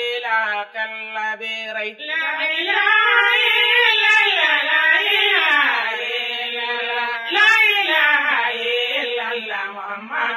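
A voice singing a chant in long, drawn-out notes that waver and glide in pitch.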